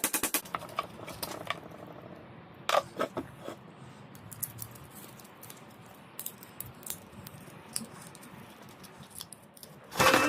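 Small sharp clicks and light taps, with a quick run of rapid clicks at the start and scattered single ones after.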